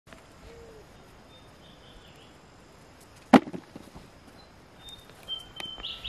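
A wooden-handled digging tool striking moist soil while potatoes are dug up: one sharp thud about halfway through, with a few lighter knocks just after it and more small clicks near the end.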